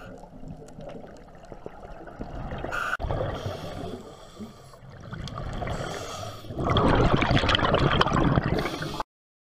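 Underwater scuba sound: a diver's exhaled bubbles gurgling from the regulator. A denser rush of bubbles comes close to the camera from about two-thirds of the way in, then the sound cuts off suddenly.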